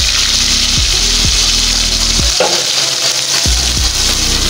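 Hot oil sizzling and bubbling steadily in a pan, with whole spices frying in it.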